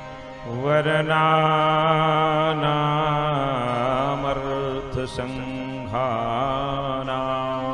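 A man chants a Sanskrit verse melodically in long, wavering held notes over a steady instrumental drone. His voice comes in about half a second in, pauses briefly around the fifth second and then resumes.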